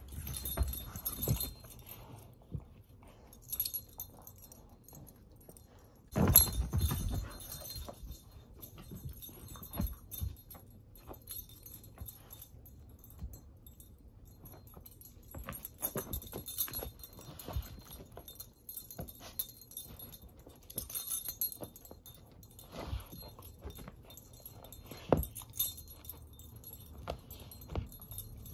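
A dog playing roughly with a plush toy: the metal tags on its collar jingle in short bursts among scattered knocks and thuds of paws and toy on the floor, with one heavier thump about six seconds in.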